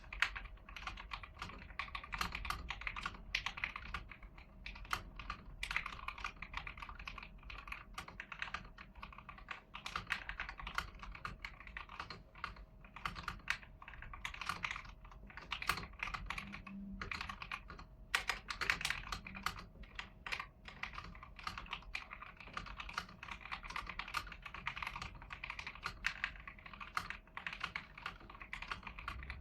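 Continuous typing on an AIGO A100 mechanical keyboard with stock, unmodified yellow switches: an unbroken stream of key clicks that runs on without pause.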